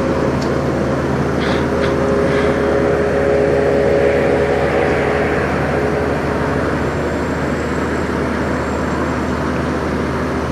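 Peterbilt semi truck's diesel engine idling steadily, with a few faint clicks about one and a half to two and a half seconds in.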